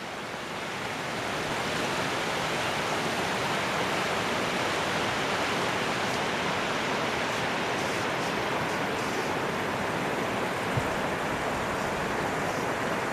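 Rain from a passing squall falling steadily, a dense even hiss that builds over the first couple of seconds and then holds.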